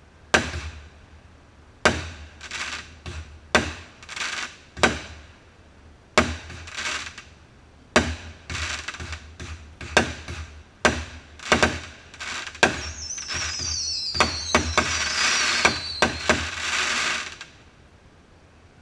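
Aerial fireworks bursting overhead: a string of sharp bangs with echoing tails, one to three a second. About 13 seconds in, falling whistles and a dense hiss of rapid pops come in with more bangs for several seconds, then stop near the end.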